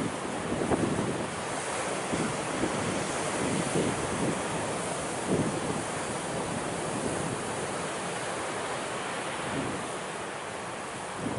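Ocean surf washing on a rocky shore, with wind blowing on the microphone: a steady rush of noise with a few short louder gusts.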